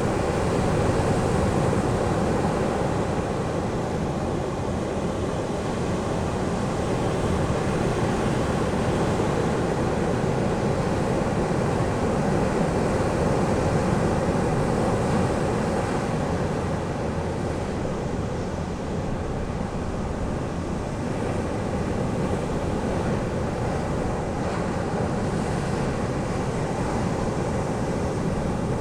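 Ocean surf washing onto a beach: a continuous, even wash of waves that swells and eases gently, with a faint steady hum underneath.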